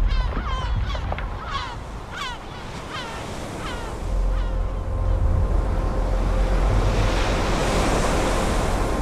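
Seabirds give a quick series of falling calls that fade away over the first few seconds. From about four seconds in, a rushing sound of surf and wind swells up over a deep rumble, with a faint steady hum underneath.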